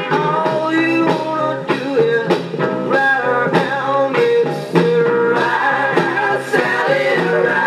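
A 1960s rock-and-roll 45 rpm single playing on a restored 1953 RCA Victrola 45EY2 Bakelite record player through its built-in amplifier and speaker: a male singer over electric guitar and band, the song having started just before.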